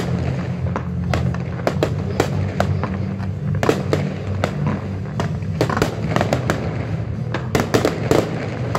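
Fireworks display: a quick, uneven string of sharp bangs and crackling pops from launches and bursting shells, several a second.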